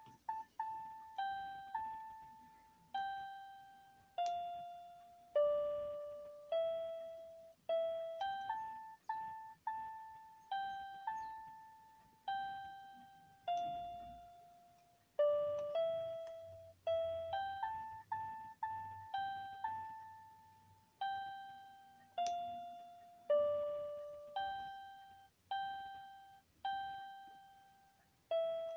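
Casio CTK-1500 electronic keyboard playing a slow single-note melody, one key at a time. Each note sounds clearly and then fades.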